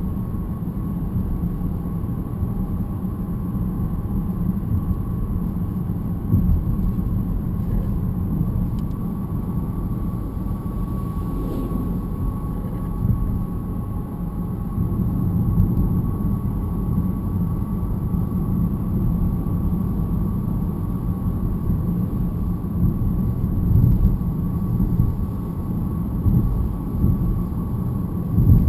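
Low road and drivetrain rumble inside a moving BMW E90 318, with a thin, steady metallic whine held above it, a noise the owner puts down to the differential.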